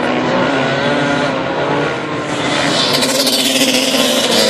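Supermoto racing motorcycles' single-cylinder engines running hard around the track, revving through the corners. About three seconds in the sound grows louder and brighter as one bike comes past close by.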